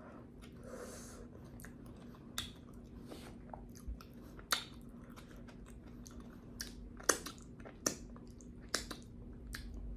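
Close-miked mouth sounds of someone chewing hot boiled potato, with wet smacks and lip clicks about once a second. A faint steady hum runs underneath.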